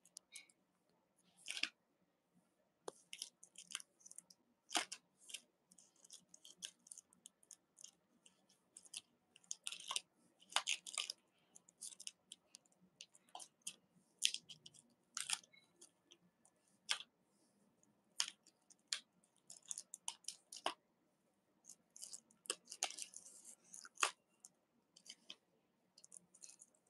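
Clear plastic sleeve pages of a trading-card ring binder being turned by hand, giving faint, irregular crinkles and sharp clicks.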